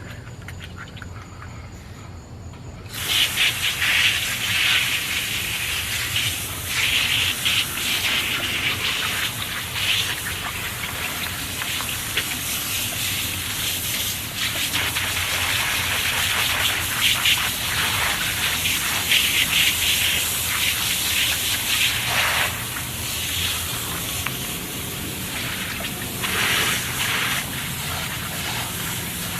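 Water spraying and gushing, starting suddenly about three seconds in and running on with a wavering level.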